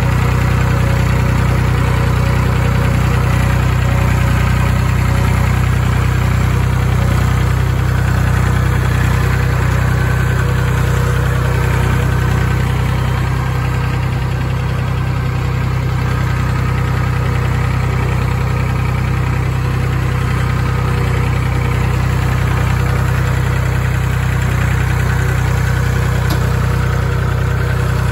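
Massey Ferguson 251XE tractor's diesel engine running steadily, heard from the operator's seat.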